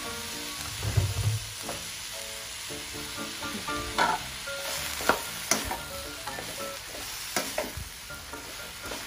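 Vegetables sizzling in hot oil in a nonstick wok as they start to stir-fry, with a few sharp knocks from about four seconds in.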